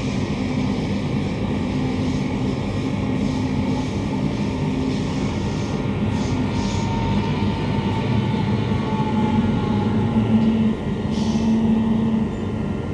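Interior running noise of a Queensland Rail IMU 120 series electric multiple unit underway: a steady rumble of wheels on rail with a low, even hum.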